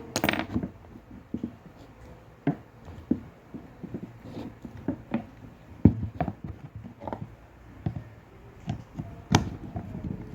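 Irregular clicks and knocks of an electric fan's parts and tools being handled as the fan is taken apart, with a sharper knock just before the middle and another near the end.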